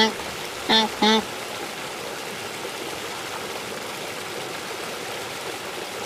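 Waterfowl giving a few short nasal calls, two in quick succession about a second in, then a steady wash of water along the shore.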